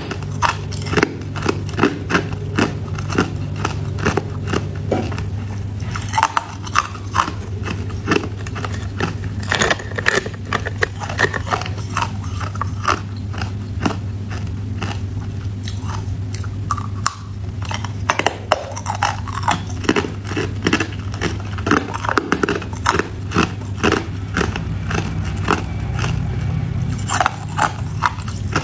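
Hard clear ice balls bitten and chewed close to the microphone: a long run of sharp cracks and crunches in quick succession.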